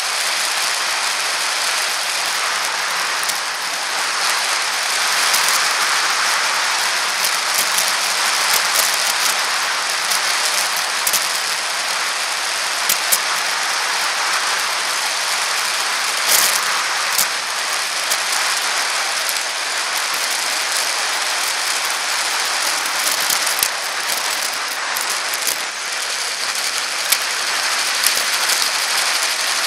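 Bicycle riding on a paved path heard from a bike-mounted camera: a steady hiss of wind and tyre noise with scattered clicks and rattles from bumps in the path.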